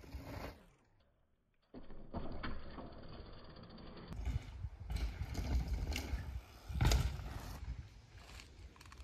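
Mountain bike rolling over a packed-dirt forest trail: tyres crunching and the bike rattling, with several knocks, the loudest about seven seconds in. The sound cuts out briefly about a second in.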